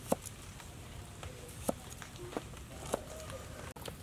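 A cleaver chopping through a lime onto a wooden chopping block, three sharp knocks a second or so apart.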